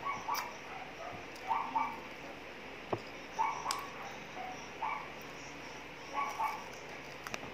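A dog whimpering in short, repeated calls, about one every second, with a couple of sharp clicks near the middle.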